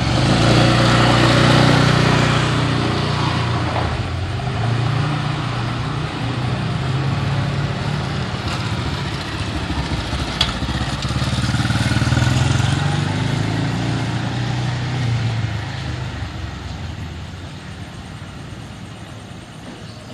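Motorcycles and cars passing on the road, engines running by. The engine sound is loudest in the first few seconds and again around twelve seconds, then fades toward the end. There is a brief tick about ten seconds in.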